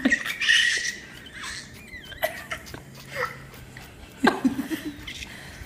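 A toddler giggling in short bursts, loudest right at the start and again about four seconds in.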